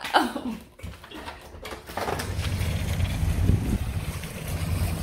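A brief exclaimed voice, then, about two seconds in, a steady low rumble of wind buffeting a handheld phone's microphone outdoors.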